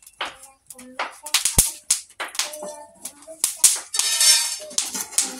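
A metal spatula scraping and turning squash seeds as they toast on a metal comal over a wood fire: an irregular run of short scrapes and rattles, with a sharp knock about one and a half seconds in.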